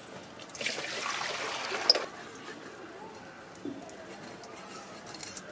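Water pouring for about a second and a half, ending with a sharp knock, then a faint small clatter.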